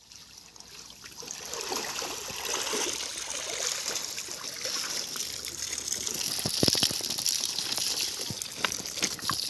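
Water gushing and splashing, building from quiet over the first couple of seconds and then running steadily, with scattered small clicks.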